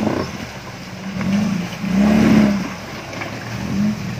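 Engine of a lifted short-wheelbase Suzuki Jimny off-roader revving in three short bursts as it climbs up out of a muddy creek bed, the middle rev the longest and loudest.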